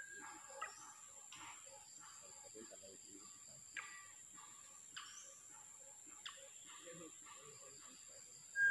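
Birds giving short, sharp calls every second or so over a steady high insect drone, with a loud clear whistled note right at the end.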